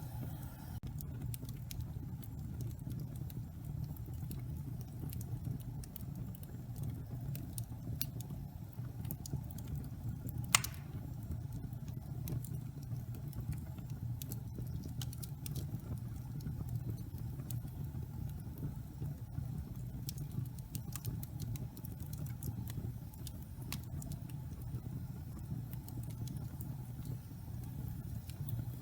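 Wood fire burning in a fireplace, with scattered crackles and one loud pop about ten seconds in, over a steady low rumble.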